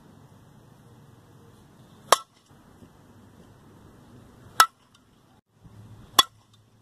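Fastpitch softball bat striking a softball three times, each hit a sharp ping with a short ring, about two and a half and then one and a half seconds apart.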